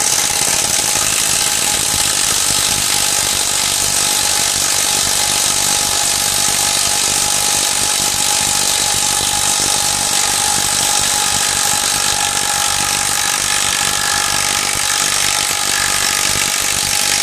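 YATO YT-82930 18V cordless impact wrench hammering steadily under load, with a constant motor whine, as it drives a long carpentry screw into a timber beam without a pilot hole.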